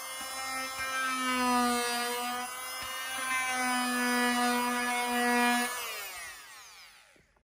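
Corded triangular detail sander running steadily as it sands the edge of a wooden door panel, its pitch wavering slightly under hand pressure. About six seconds in it is switched off and its motor whines down to a stop.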